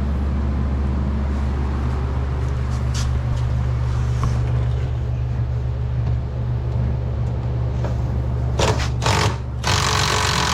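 A steady low mechanical hum throughout, with a few light clicks, then two loud bursts of hissing noise near the end.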